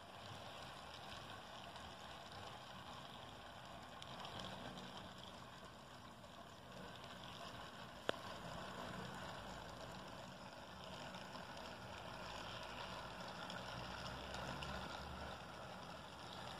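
Faint outdoor background noise: a steady hiss with low rumbling that grows in the second half, and a single sharp click about eight seconds in.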